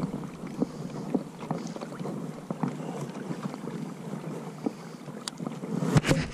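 Small waves lapping against a plastic kayak hull, with many light irregular ticks and clicks and two sharper knocks near the end.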